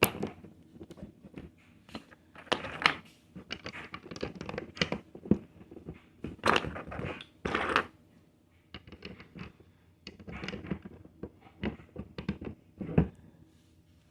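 Plastic Lego pieces being handled, clicking, rattling and rustling in irregular bunches of short clicks with brief pauses between them.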